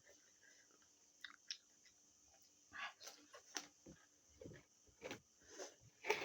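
Mouth sounds of eating noodles: faint wet chewing and lip smacks in a scattered run of short clicks, growing louder and busier in the second half.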